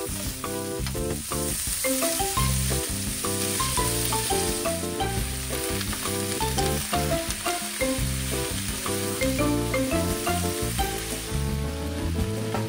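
Cabbage, onion and ground meat sizzling as they are stir-fried and tossed with a spatula in a frying pan on a gas burner. Background music with changing notes plays over the sizzle.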